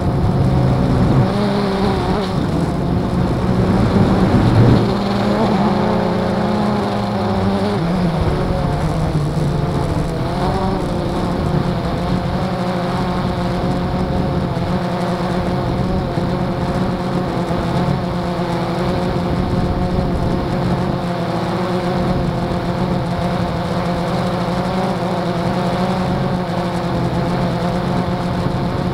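Blade 350 QX quadcopter's four brushless motors and propellers buzzing in flight, heard through the SJ4000 camera mounted on the craft. The pitch wavers and shifts for the first ten seconds or so as the throttle changes, then holds steady.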